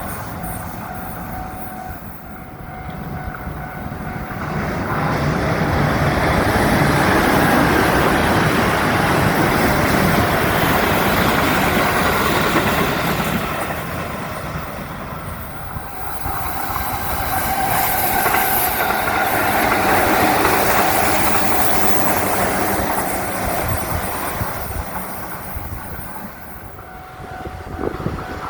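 Electric trains taking a sharp curve: steel wheels squealing piercingly against the rails, with clatter over the track. The sound swells up twice, first about 4 s in and again about 16 s in, each swell lasting several seconds.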